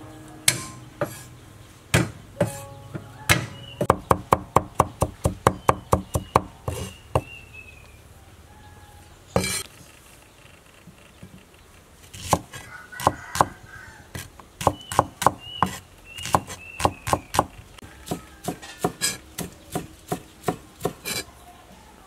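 Kitchen knife chopping on a wooden cutting board, slicing shallots and chopping green onions. A quick run of about five chops a second comes a few seconds in, then a pause, then further bursts of chopping.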